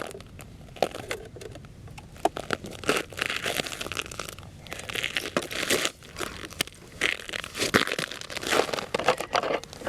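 Irregular crunching and crackling of snow and ice.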